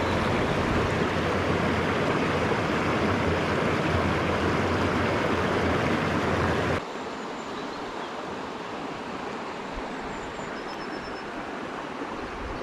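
Steady rush of stream water. A little past halfway it drops suddenly to a quieter rush, and a few faint high chirps come in near the end.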